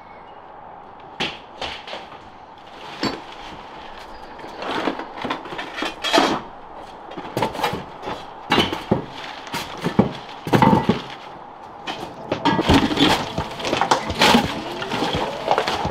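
Irregular knocks, bangs and clatter of hand work on a building site, with no steady machine running underneath; the hits come singly and in short busy clusters.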